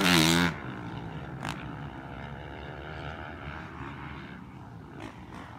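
Motocross dirt bike engines revving. The loudest rise and fall of revs is in the first half-second, then a fainter engine drone that keeps going up and down in pitch, with a short click about one and a half seconds in.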